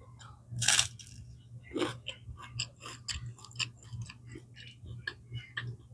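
Close-miked eating sounds: chewing and mouth clicks, with a louder crunch just under a second in and another near two seconds, over a steady low hum.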